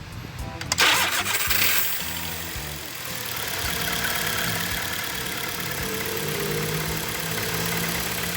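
A car engine starting: a loud burst of cranking about a second in, then the engine catches and runs steadily.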